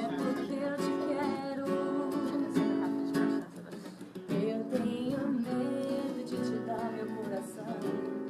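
Acoustic guitar strummed with a voice singing along.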